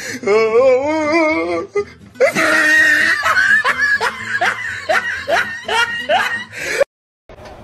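A person laughing over music: first a wavering, pitched giggle, then a run of repeated 'ha-ha' laughs about two or three a second. The laughing cuts off abruptly near the end.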